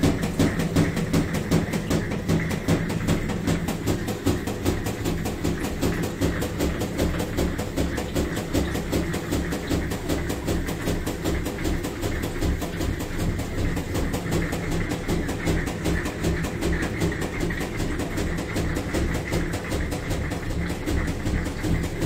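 Panasonic NA-F65G7 top-loading washing machine running with a fast, even rattle over a steady hum. This is the abnormal noise that marks a fault in the machine.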